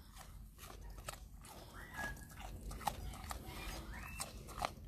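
Potbelly pig chewing carrot pieces, faint irregular crunches.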